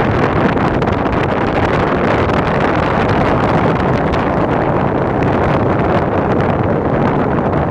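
Wind buffeting the microphone over tyre noise from a car's wheel rolling fast on the road: a loud, steady rushing.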